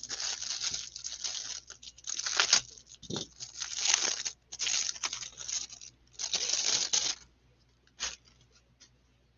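A trading-card hanger box's packaging being torn open and crinkled by gloved hands, in a series of rough tearing bursts over about seven seconds. A single light click follows about eight seconds in.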